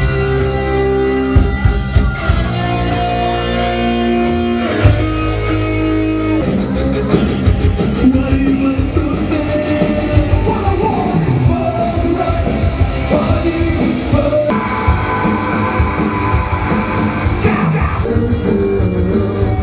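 Rock band playing live with a singer, electric guitar over a steady beat.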